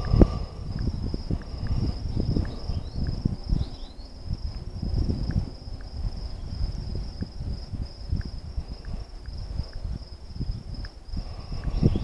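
Crickets singing in one steady high trill, over a low, uneven rumble.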